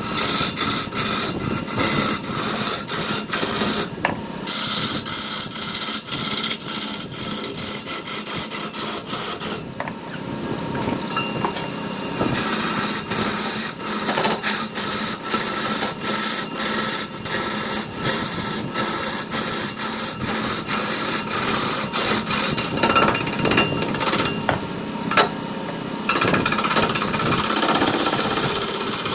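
Wood being cut on a lathe with a hand-held turning tool: a loud scraping hiss that comes and goes with each pass of the tool. It eases off for a couple of seconds about ten seconds in and again near the end.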